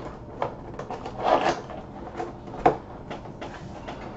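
Cardboard box being handled: rubbing and sliding with a few light knocks, the sharpest about two and a half seconds in.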